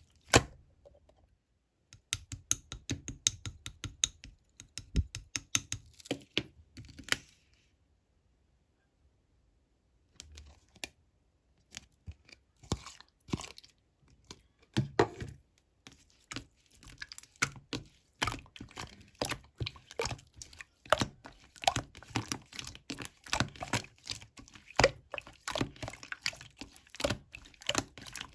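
Rapid typing on an iPhone touchscreen keyboard: quick runs of sharp taps and key clicks, pausing for about two seconds partway through.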